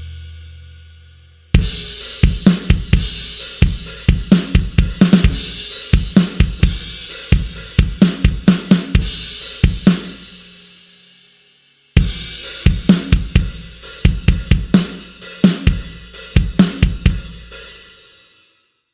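Sampled acoustic drum kit from the Blasting Room Signature Series Drums Kontakt library playing two short grooves of kick, snare, hi-hat and cymbals. Each groove ends with the kit ringing out, and there is a brief silence between them.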